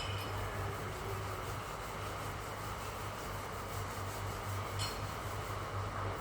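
Sandpaper rubbing steadily over a dented surface, prepping it for filler, with a short click about five seconds in.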